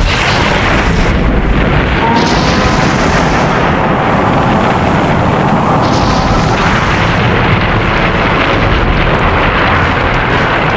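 Movie battle sound effects: a continuous loud wall of explosions and deep rumbling, changing character about two and six seconds in.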